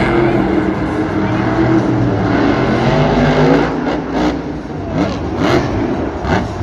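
Monster truck's supercharged V8 engine revving hard, the pitch rising and falling with the throttle, with a few short knocks after about four seconds.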